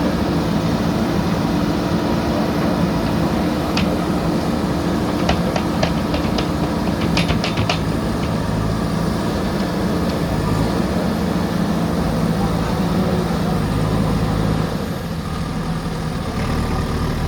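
Diesel engine of a JCB backhoe loader running steadily, with a quick run of sharp metallic clanks a few seconds in. The engine eases off about three-quarters of the way through.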